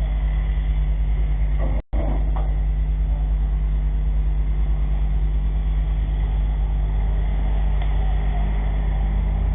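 An engine running steadily at idle, with the sound cutting out for a moment about two seconds in.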